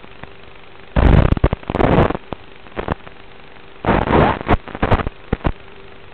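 Audio of an analog FPV video receiver: a steady hiss and faint hum, broken by two loud crackling bursts of static, each about a second long, starting about a second in and about four seconds in, with scattered sharp clicks between. The crackle is the analog video link breaking up as the signal weakens.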